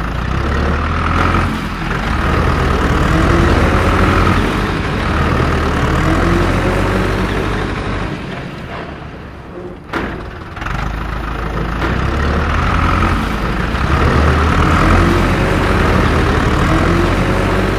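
A heavy engine running and revving in slow swells, with rising pitch as it revs. It fades briefly about ten seconds in, then picks up again.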